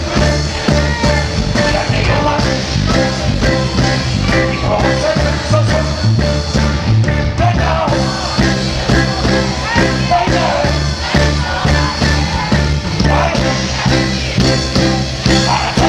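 Live reggae band playing loud with a steady beat: bass, drums, keyboards and electric guitar, with a male voice singing over it.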